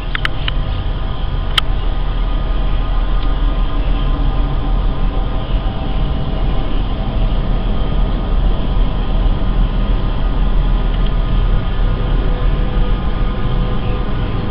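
Loud, steady low rumbling drone with faint held tones above it, a strange sound that seems to come from directly overhead. A few small clicks in the first two seconds.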